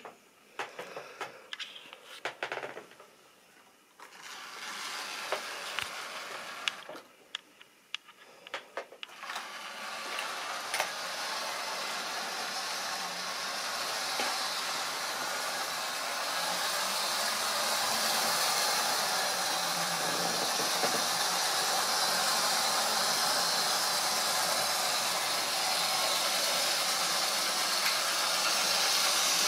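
Model railway train running on the track. Irregular clicks and rattles for the first nine seconds or so, then a steady whirring rush of the motor and wheels that grows louder.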